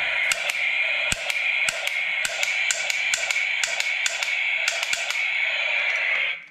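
Plastic toy guns handled on a table: irregular sharp clicks and taps as a toy revolver is picked up and turned over, over a steady hiss that cuts off suddenly at the end.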